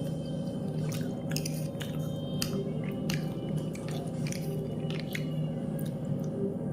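Close-up chewing of soupy Maggi masala noodles, with scattered sharp mouth clicks and smacks.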